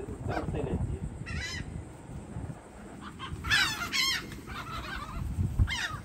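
Seagulls calling: a single squawk about a second and a half in, a burst of several loud calls around three and a half to four seconds in, and another call near the end, over a low rumble.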